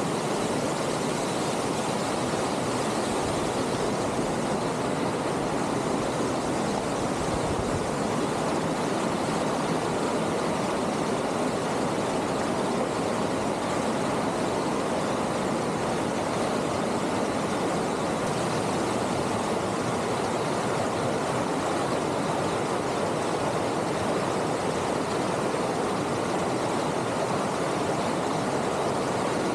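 A steady, even rushing noise that does not change in level.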